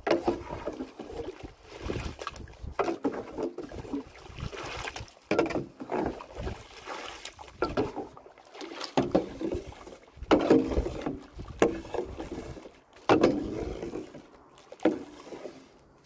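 A shovel mixing wet cement in a wheelbarrow: repeated scraping, sloshing strokes, about one every second or two.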